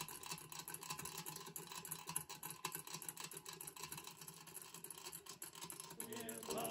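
Märklin 4137 toy live-steam engine running with a drive model hooked up to it: fast, irregular light ticking and clattering.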